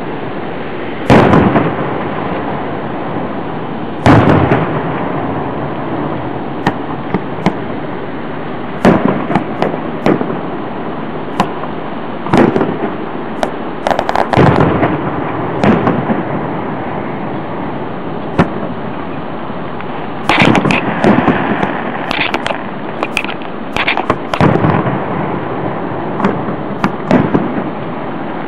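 Aerial fireworks shells bursting overhead: a series of sharp booms a few seconds apart, with a dense run of bangs and crackling about twenty seconds in. A steady hiss runs underneath.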